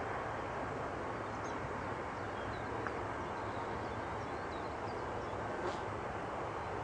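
Steady background hiss with a low hum, and a few faint, short bird chirps.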